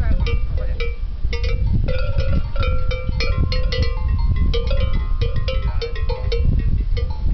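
Cowbells on Tudanca cows clanking irregularly as the cattle move their heads. The bells ring at several different pitches, some strikes overlapping, over a low rumble of wind on the microphone.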